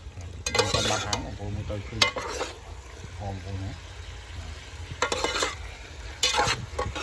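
Metal spoon stirring and scraping pork intestines around a metal pot, in four separate scraping strokes, while the meat and sauce fry with a steady sizzle.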